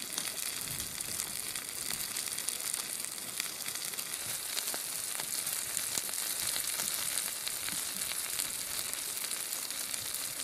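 Crumb-coated flathead fillets frying in butter in a steel pan over campfire coals: a steady sizzle with fine crackling ticks.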